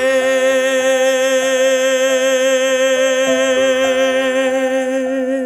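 A male singer holds one long note with vibrato on the final word of the song, over soft piano chords.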